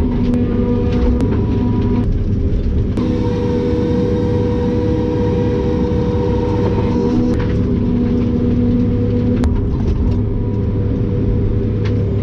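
John Deere 753G harvester's diesel engine and hydraulics running steadily under work, with a whine that changes pitch a few times and a few sharp ticks over the top.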